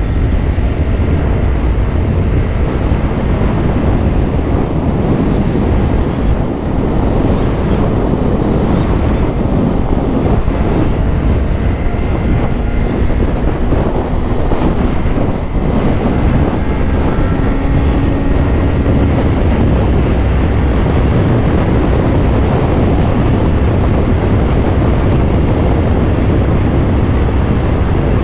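Steady wind rush over the microphone with a 2024 Kawasaki Ninja 500's parallel-twin engine running underneath, the motorcycle under way.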